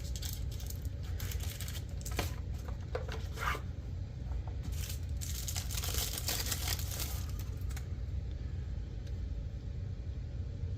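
Handling noises: rustling and scattered light clicks as a pocket knife is unpacked and turned over in the hands, with a longer spell of rustling about halfway through.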